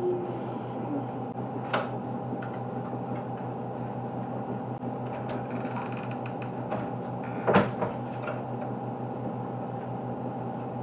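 Kitchen cupboard doors knocking shut: a light knock about two seconds in and a louder one about seven and a half seconds in, over a steady machine hum.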